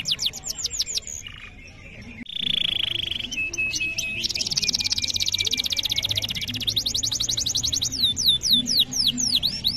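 Domestic canary singing a long, continuous song. It runs through series of quickly repeated falling whistled notes, breaks off briefly about a second in, then gives a short buzzy trill, a very fast rolling trill and more repeated sweeping notes.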